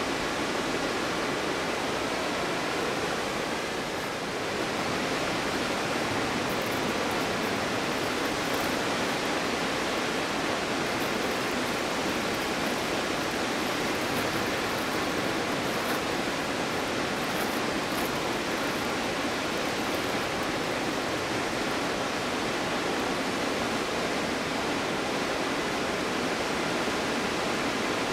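Stuibenfall waterfall in winter: water falling in a steady, even rush, dipping slightly in level about four seconds in.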